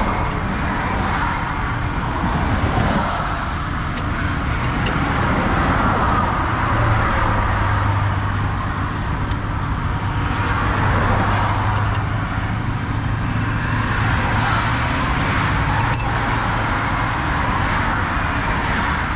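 Highway traffic on an interstate, vehicles passing one after another in slow swells of tyre and engine noise, over a steady low hum. A few sharp clicks come through, about four, five, nine, twelve and sixteen seconds in.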